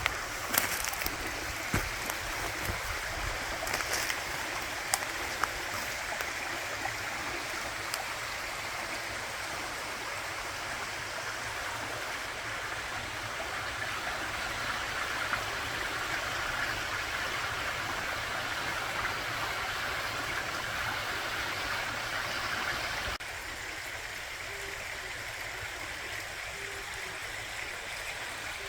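Running water, a steady rushing flow like a stream, with a few sharp clicks in the first few seconds. About 23 seconds in it drops suddenly to a slightly quieter flow.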